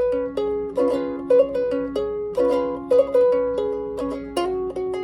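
Rebel Alchemist Jr. ukulele played fingerstyle: chords and melody notes plucked every half second or so, each ringing on and fading under the next.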